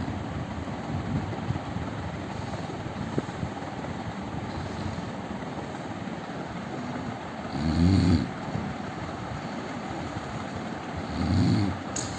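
A man snoring in his sleep: two loud snores about three and a half seconds apart, over a steady background hiss.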